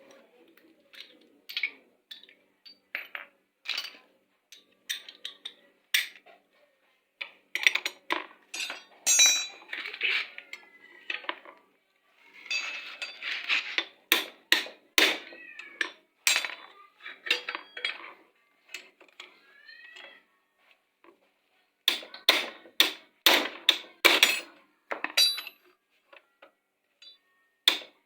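Metal tools and scooter drive parts clinking and knocking in irregular clusters of sharp taps, with a few brief rising-and-falling squeal-like cries mixed in.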